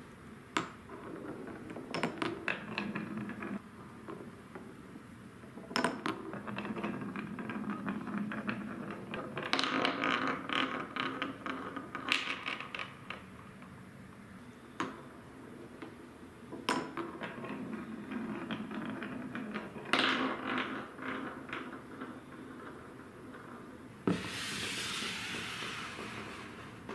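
A glass marble rolling and clattering through a wooden Cuboro marble run, several runs in turn: each begins with a sharp clack and goes on as a rattling roll through the grooves and tunnels. Near the end, a wooden block scrapes across the table for a few seconds.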